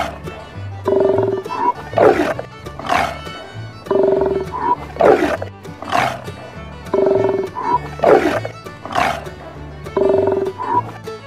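Sea lion calling over and over, loud hoarse barks and roars about once a second. Background music with a bass line plays underneath.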